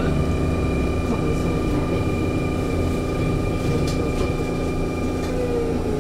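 Sotetsu 9000 series electric train with Hitachi IGBT-VVVF inverter drive running, heard from inside the car: a low rumble of wheels and motors with steady high whining tones, and a tone rising briefly near the end.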